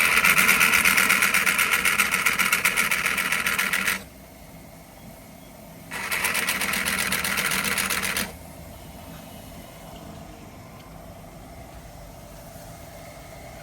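A power tool running in two bursts, about four seconds and then about two seconds, with a fast, even rattling hammer; after the second burst only a faint steady background remains.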